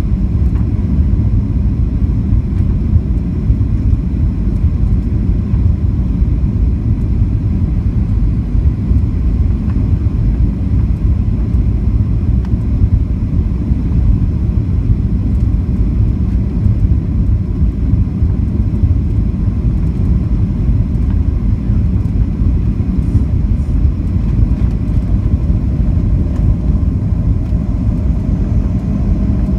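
Cabin noise of a Boeing 737-800 on final approach to landing: a steady, loud rumble of its CFM56-7B turbofans and the airflow, heard inside the cabin at a window seat over the wing.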